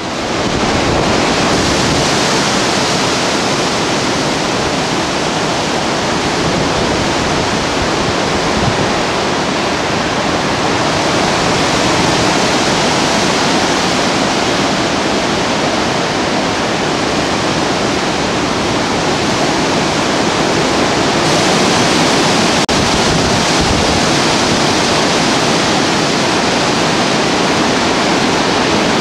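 Storm wind rushing through trees in a severe windstorm, a loud, steady rush that grows a little louder and brighter about three-quarters of the way through.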